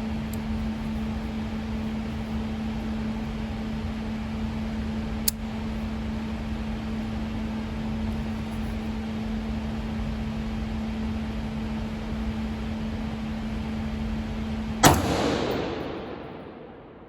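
Steady hum of range ventilation with a constant low tone, a small click about five seconds in, then a single gunshot near the end that rings out and dies away over about two seconds.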